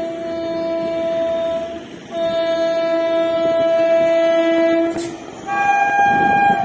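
Indian Railways train horn sounding in long steady blasts: one blast, a short break, then a second longer one. After a sharp click about five seconds in, a higher-pitched horn blast follows.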